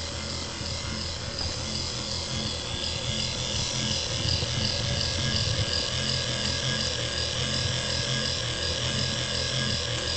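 A Mars 888 oscillating warning light's electric motor and gear mechanism running, a steady mechanical whir with an even, repeating pulse as it swings the lamp.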